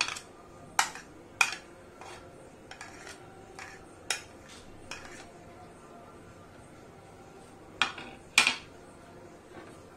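Steel spoon scraping and tapping churned paneer off a plastic plate into a frying pan: about ten irregular clinks and taps, with a loud pair about eight seconds in.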